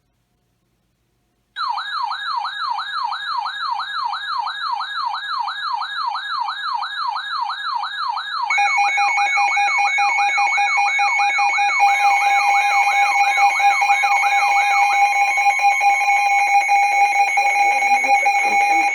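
An electronic siren tone warbling fast, about three times a second, starts after a short silence. About eight seconds in a steady alert tone joins it. The warble stops near the end and the steady tone holds alone, as for an emergency alert before a weather-radio voice message.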